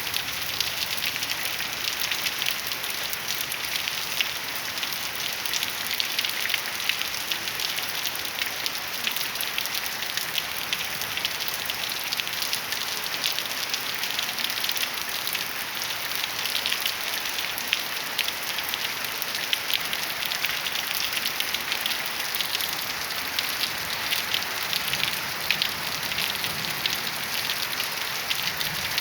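Steady heavy rain pattering on surfaces, a dense hiss with countless fine drop ticks.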